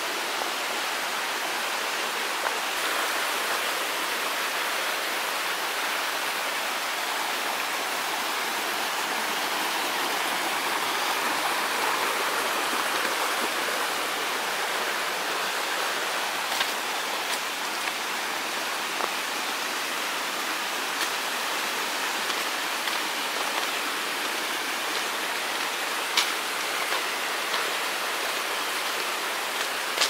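Mountain stream rushing steadily over rocks, an even wash of water noise, with a few faint clicks in the second half.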